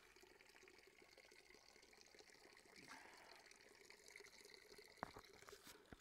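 Near silence: faint hiss of room tone, with a single sharp click about five seconds in.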